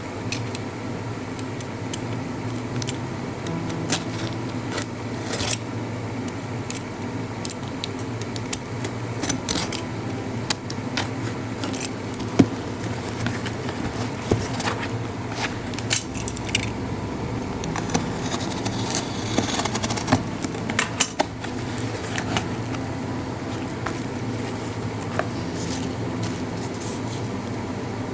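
Product packaging being handled and opened by hand: scattered clicks, scrapes and rustles, busiest in the middle, over a steady low room hum.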